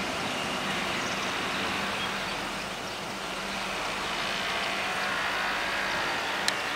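A vehicle engine hums steadily at low pitch over outdoor background noise, fading away late on. There is a single sharp click near the end.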